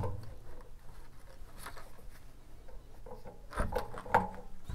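Faint rubbing of a rag wiping lubricant off the relief valve seat of a Watts 909 backflow assembly, with a few light knocks of parts being handled near the end.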